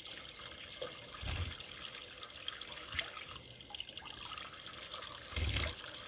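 Small mountain spring trickling steadily from a mossy bank, the water falling into cupped hands. Two soft low thumps come about a second in and near the end.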